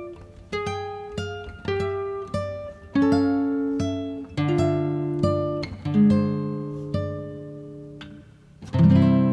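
Background music of slow, separate plucked notes, one or two a second, each dying away, with a louder chord near the end that rings on.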